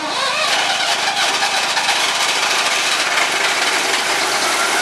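Vintage Ahlmann wheel loader's diesel engine revving up sharply at the start, then running loud and steady.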